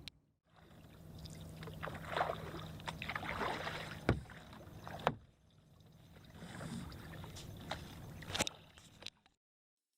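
Kayak paddle strokes splashing in the water, with a few sharp knocks and a low steady hum underneath; the sound cuts off suddenly near the end.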